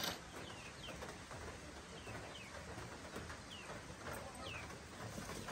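Birds chirping faintly, a scatter of short, high, falling chirps every half second or so, with a soft tick near the start.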